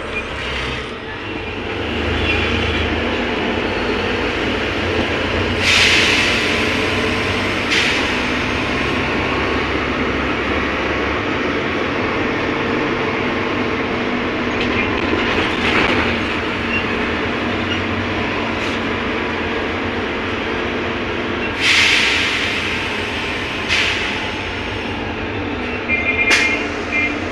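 Steady engine and road noise inside a moving air-conditioned city bus, with several brief louder rushes of noise and a few short high beeps near the end.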